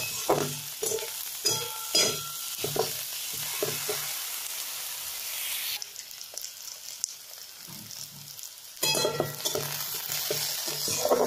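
Sliced onions and diced brinjal sizzling in hot oil in a kadai, with a spatula scraping and knocking against the pan as they are stirred. The sizzle drops away for about three seconds past the middle, then comes back.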